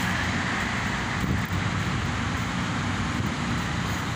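Steady road traffic noise from passing cars.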